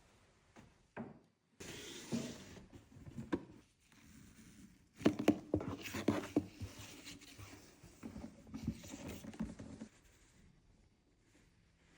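Unboxing rustle: packaging being handled and opened, with paper and box rustling and a quick run of sharp taps and clicks around five to six seconds in.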